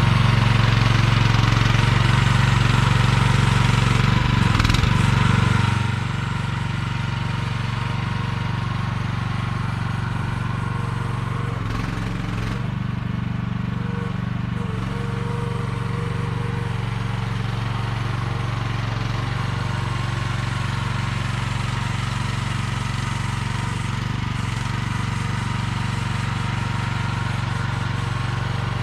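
Small engine of a 1-ton AGT QH12R mini excavator running steadily, louder for about the first six seconds, then easing to a lower, even level.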